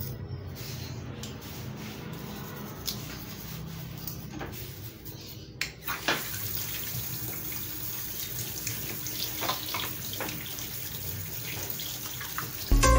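A steady hiss with a few light knocks and clatters, about five seconds in, as things are moved about during household cleaning.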